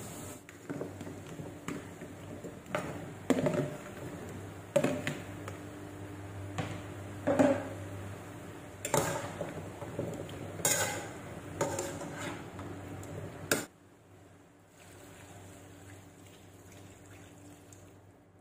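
Metal spoon stirring and tossing chicken pieces and winter melon cubes in an aluminium pot, with irregular clinks and knocks against the pot. About three quarters of the way through the clatter stops and a quieter, even sound follows as water is poured into the pot from a plastic jug.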